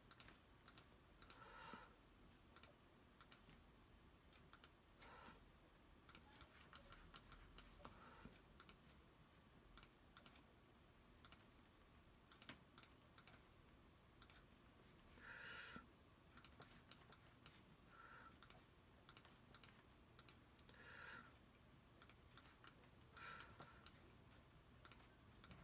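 Faint, irregular clicking of a computer mouse, sometimes several clicks in quick succession, over near-silent room tone.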